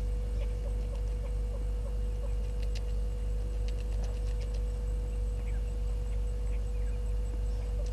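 Steady low electrical hum with a thin constant whine, the kind picked up by a remote outdoor camera's audio. A few faint, sharp high clicks come about three seconds in, then a quick run of them around four seconds.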